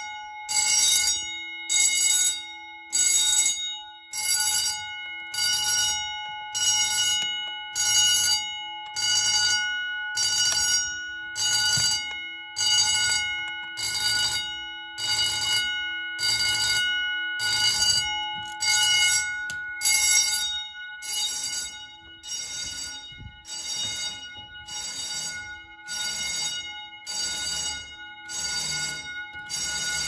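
Edwards 439D fire alarm bells ringing in pulses, about one burst a second, after an Edwards 270 pull station has been pulled. The ringing grows somewhat fainter in the second half.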